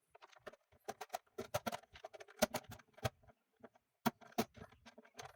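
Small irregular clicks and taps of a screw being driven by hand with a screwdriver into the plastic housing of the instrument cluster, with plastic parts handled between turns.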